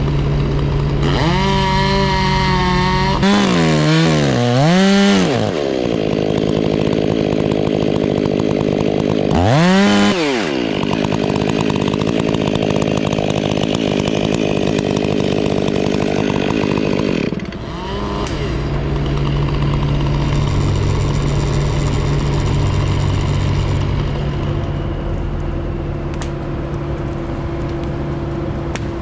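Chainsaw revving up and down several times, then running steadily as it cuts for several seconds before dropping back. A lower, steady engine hum runs underneath to the end.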